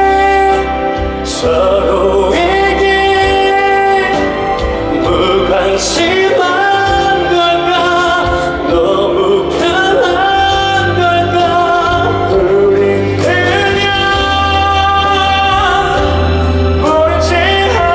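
Live pop music: male voices singing long held notes over a band with a steady bass.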